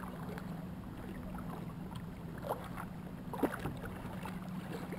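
Lake water lapping and splashing around kayak hulls, with short splashes from a wooden kayak paddle about two and a half and three and a half seconds in, over a steady low hum.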